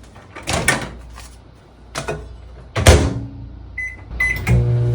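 Panasonic NN-SG676B microwave oven being operated: a few sharp clicks and knocks, the loudest a heavy thump of the door shutting about three seconds in, then two short keypad beeps. Near the end the oven starts up with a steady low hum.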